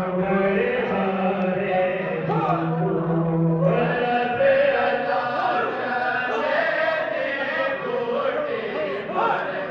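A group of men chanting Sufi zikr together, many voices at once. A low held note gives way about four seconds in to a higher, more varied chant.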